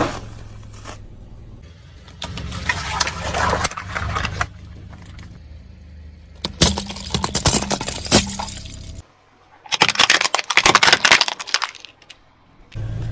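Car tyres rolling over and crushing brittle objects: repeated runs of crunching, cracking and snapping, with a low engine hum under some of them. The crushing comes in separate bursts, loudest about halfway through and again near the end, with quieter gaps between.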